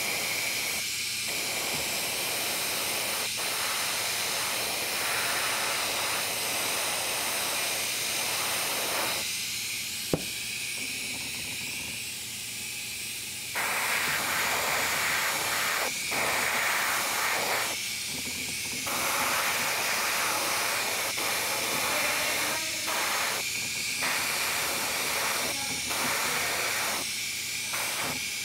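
Airbrush hissing as paint is sprayed, in spurts of one to several seconds as the trigger is pressed and released, over a steady thin hiss of air. There is one sharp click about ten seconds in.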